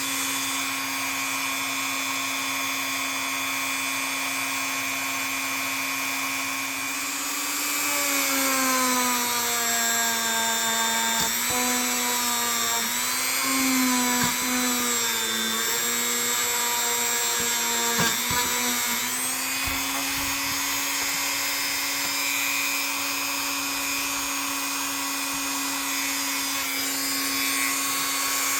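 Small high-speed power tool buffing a rusted steel knife with rubbing compound. Its motor runs at a steady pitch, then sags and wavers for about ten seconds in the middle as it is pressed against the work, with a few faint ticks, before rising back to a steady pitch.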